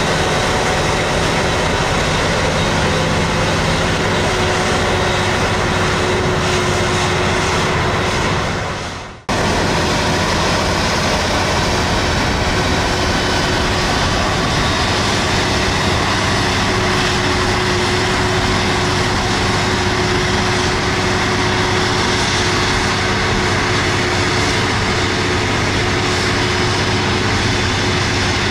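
Claas Jaguar 990 self-propelled forage harvester running under load, chopping maize: a steady heavy engine drone with a constant whine over it. About nine seconds in, the sound fades briefly and then cuts back in abruptly.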